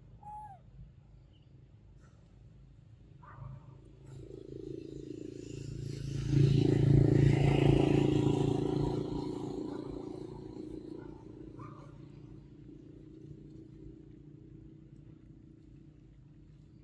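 A low engine rumble, likely a motor vehicle passing: it swells over a couple of seconds, is loudest about seven seconds in, then fades away slowly.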